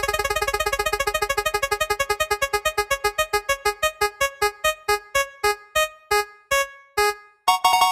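Spinning prize wheel sound effect: rapid synthesized pitched clicks that slow steadily as the wheel winds down, to about two a second. Near the end a louder, brighter note rings out as the wheel stops.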